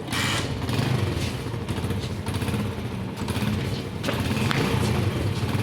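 Honda CD 70's single-cylinder four-stroke engine running, with its exhaust note louder at the start and again about four seconds in.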